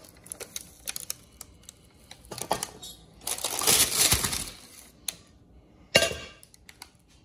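Parchment paper rustling, with metal clinks and knocks from a stainless steel pot and a wire cooling rack, as a baked sourdough loaf is lifted out of the pot on its parchment. There are scattered light clicks, a longer loud rustle midway, and one sharp knock near the end as the loaf is set down.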